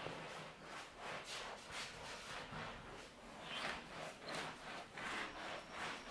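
A cloth duster wiping chalk off a blackboard in repeated back-and-forth swishes, about two strokes a second, with a short pause about halfway through.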